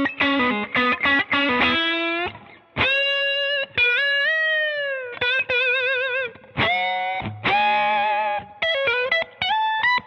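Electric guitar played through a Rola Reverb 50 amplifier: a quick run of picked notes, then long held notes with a bend and wide vibrato, and more short single-note phrases near the end.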